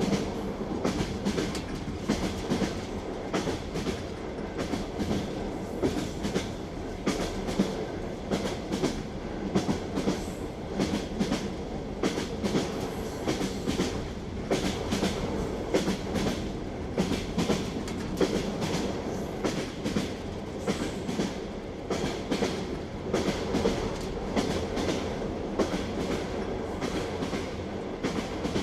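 Train wheels clacking over rail joints, a steady clickety-clack of knocks over the running rumble of the railway carriage.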